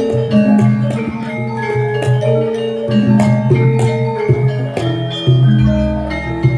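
Javanese gamelan ensemble playing a lancaran in pelog tuning: many bronze metallophones and gongs struck in interlocking steady notes. A deep low note sounds near the end.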